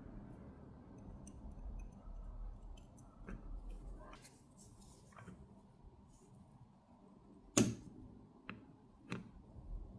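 Quiet, faint small clicks of watchmaker's tweezers and tiny steel parts being handled as the cannon pinion and minute wheel are fitted to the movement. The sharpest click comes about seven and a half seconds in, with two lighter ones a second or so later.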